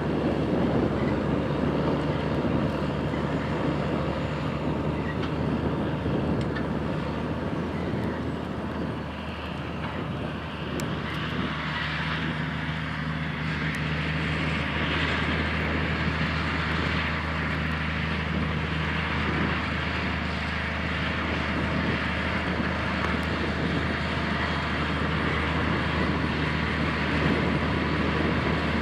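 Case IH Steiger 535 articulated tractor's big six-cylinder diesel running steadily under load while pulling a coulter chisel through the soil, a constant low engine drone. From about a third of the way in, a rushing hiss over the engine grows louder.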